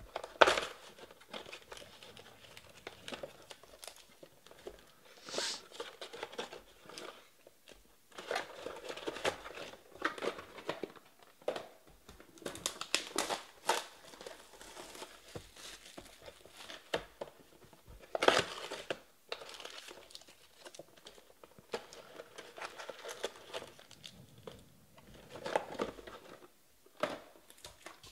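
Plastic shrink wrap crinkling and tearing as sealed trading-card hobby boxes are unwrapped and handled, in irregular bursts, loudest just after the start and again about two-thirds of the way through.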